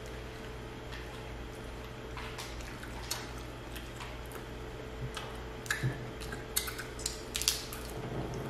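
King crab legs being eaten: scattered sharp clicks and cracks of shell and utensils, busier and louder in the second half, over a steady low electrical hum.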